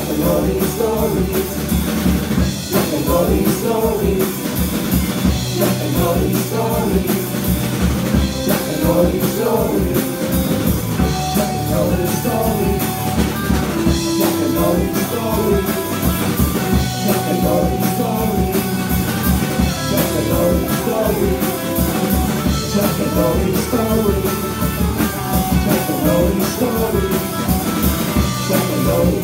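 Live band playing a song: a singing voice over guitars and a drum kit keeping a steady beat.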